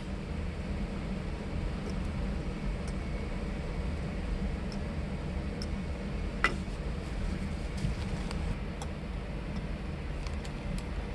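Steady low background hum, with a few faint clicks of small parts being handled and one light clink about six and a half seconds in.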